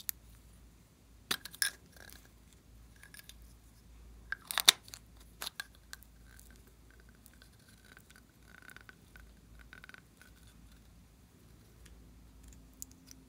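Plastic ice-cream-cone-shaped makeup tubes being opened by hand: a few sharp plastic clicks and pops as the caps come off, the loudest about four and a half seconds in, followed by faint scraping.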